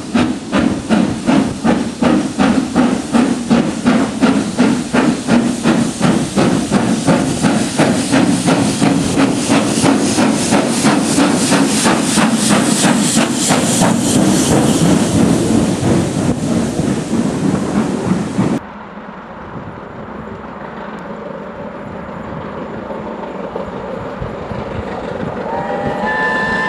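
LMS Princess Royal class four-cylinder 4-6-2 steam locomotive 6201 'Princess Elizabeth' pulling a train, its exhaust beats quickening over hissing steam until they blur together as it passes. The sound cuts off suddenly about two-thirds through to a quieter, steady train noise, and near the end a steam locomotive's whistle sounds.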